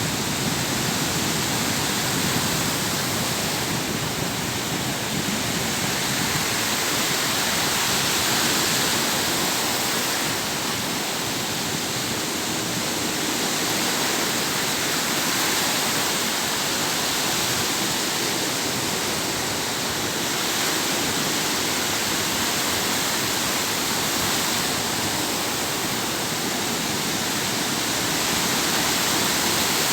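Sea waves breaking and washing ashore: a steady rushing noise that swells and eases gently every several seconds.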